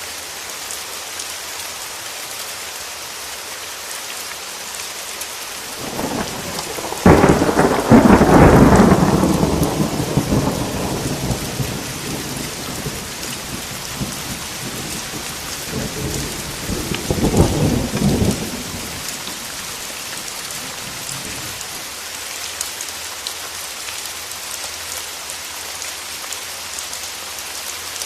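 Steady rain falling throughout, with a loud clap of thunder about seven seconds in that rolls and fades over several seconds, and a second, shorter rumble of thunder about seventeen seconds in.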